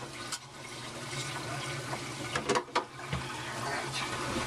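Aquarium water running steadily with a low pump hum under it. About halfway through come two sharp clicks and a dull knock as the algae scrubber screen is worked into its plastic box.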